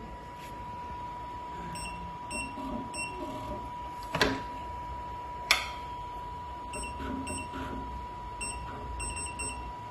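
Short electronic key beeps from a programmable pattern sewing machine's control panel as the arrow keys are pressed to jog the needle position, about nine beeps in small groups, with two sharp clicks around the middle. A steady thin high tone runs underneath.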